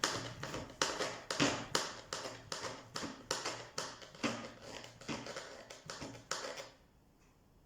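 Knife chopping two small garlic cloves on a cutting board: quick, even taps about three a second that stop near the end.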